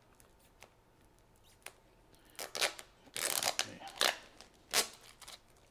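Tape and clear plastic wrapping being peeled and torn off a rolled print: a few faint crinkles, then a run of short tearing, crinkling bursts from about two and a half to five seconds in.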